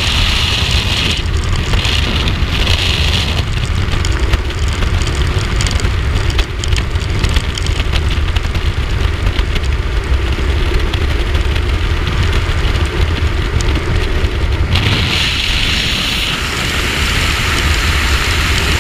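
Freefall airflow blasting over a skydiver's camera microphone: a loud, steady rush of wind with heavy low buffeting.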